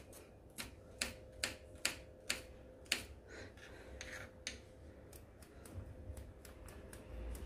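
Kitchen knife chopping watermelon rind into small cubes on a chopping board: sharp taps about two a second for the first three seconds, then a brief shuffle as the rind strips are gathered by hand, and fainter cuts near the end.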